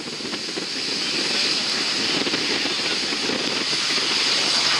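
Lockheed C-130 Hercules's four Allison T56 turboprop engines running as it rolls along the runway: a steady propeller roar with a high turbine whine, growing louder.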